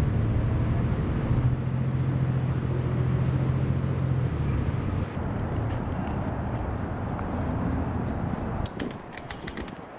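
A steady low mechanical hum over background noise, strongest for the first four seconds and easing after, then a quick run of sharp clicks shortly before the end.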